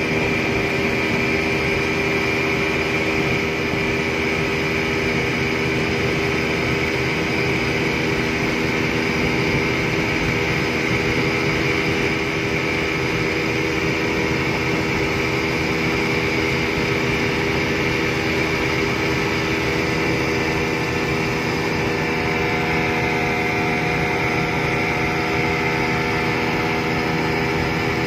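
Yamaha 200 hp two-stroke outboard motor running at a steady high speed, driving a speedboat flat out, its pitch holding even throughout.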